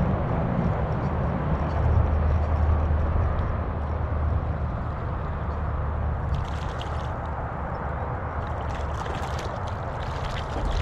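Hooked rainbow trout thrashing and splashing at the water's surface as it is reeled in close to the bank, in short splashes from about six seconds in and more densely over the last two seconds, over a steady low rumble.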